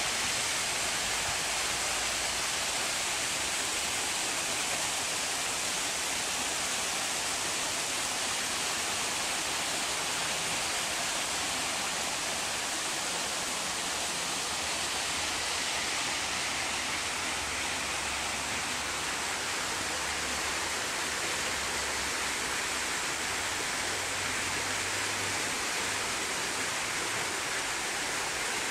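Small waterfall spilling over rocks into a garden pond: a steady, even rush of falling water, bright and hissy.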